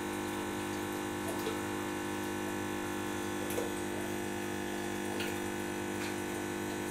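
Steady electric hum of an aquarium pump running, with a light wash of water noise and a few faint ticks.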